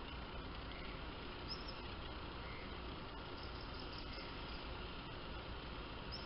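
Steady outdoor background hiss with a low hum, and a few faint, short high-pitched chirps from small birds or insects about a second and a half in, again around the middle and near the end.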